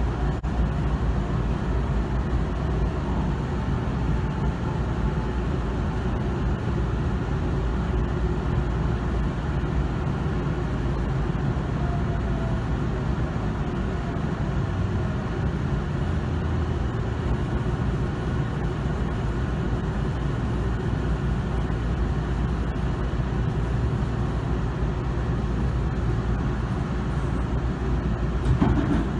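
Steady low hum and rumble inside a commuter train car standing at a station, its air conditioning and auxiliary equipment running.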